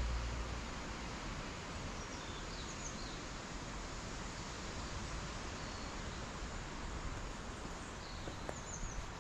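Steady outdoor woodland background hiss with a few faint, high bird chirps, about two seconds in and again near the end.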